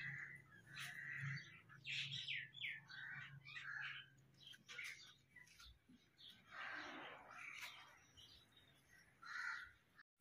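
Faint chirping of birds, many short calls one after another, with a longer, harsher call about seven seconds in.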